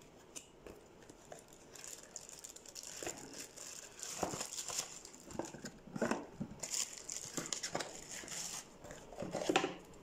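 Cardboard box and a clear plastic bag being handled as a smoke detector is unpacked: irregular crinkling and rustling with small knocks of the cardboard.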